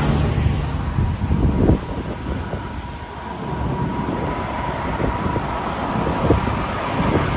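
Heavy vehicle engine, likely a fire truck, running at a low rumble with a thin steady whine over it. A few sharp knocks stand out, the clearest about two seconds in and near the end.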